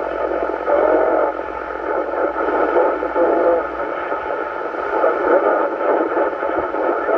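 Receiver speaker playing an 11-metre CB duplex repeater's FM output on 27.405 MHz: a hissy, narrow-band radio signal with a weak, garbled voice coming through the noise.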